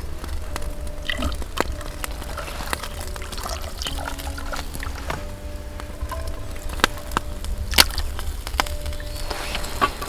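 Background music with held notes over pouring, sloshing water, with scattered sharp clicks and knocks.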